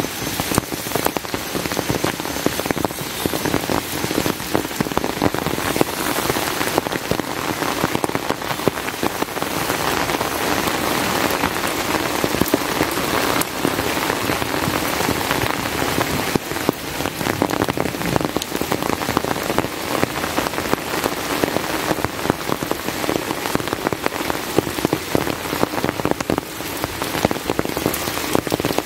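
Heavy rain falling steadily, a dense hiss thick with close drop hits.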